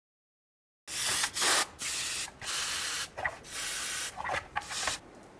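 Aerosol can of all-purpose cleaning spray hissing in a series of short bursts onto a dismantled brake caliper to clean it, starting about a second in and stopping shortly before the end.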